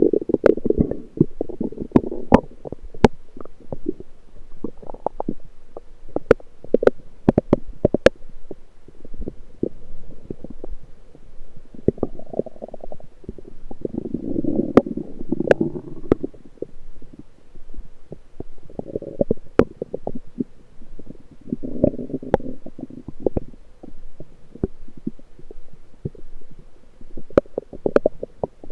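Lower-intestine gurgling (bowel sounds) heard through an electronic stethoscope on the abdomen: low bubbling gurgles that come and go every few seconds, loudest at the start and about halfway through, with many sharp clicks and pops scattered throughout.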